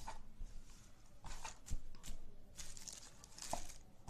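Cardboard packaging and plastic wrapping being handled: scattered rustling and crinkling, with a sharp tap a little under two seconds in.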